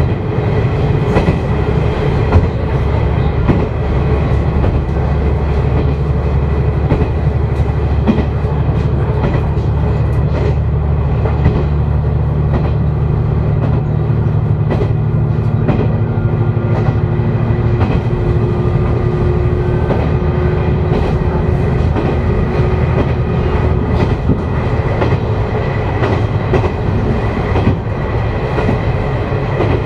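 The Umisachi Yamasachi's KiHa 125 diesel railcar running along the line, heard from inside at the front: a steady engine drone with wheel clicks over the rail joints. The engine note changes about halfway through.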